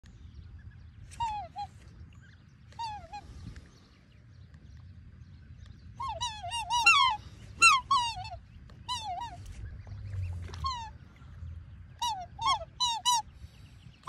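Black swans calling: short, high bugling notes that bend in pitch, in scattered groups of one to four, busiest from about six to eight seconds in, from a pair guarding their cygnets. A faint low rumble lies underneath.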